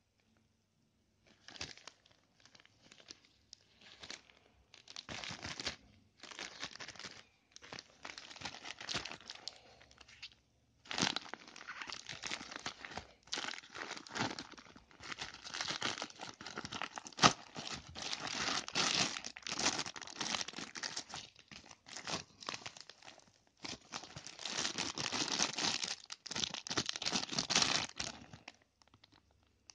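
Plastic packaging crinkling and rustling as hands open a plastic mailer pouch and handle a clear plastic bag. It comes in irregular bursts, sparse at first and busier from about a third of the way in, with one sharp snap in the middle.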